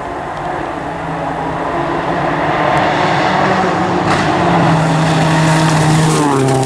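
Rally car engine at high revs, getting louder as it approaches, with the engine note dropping suddenly about six seconds in.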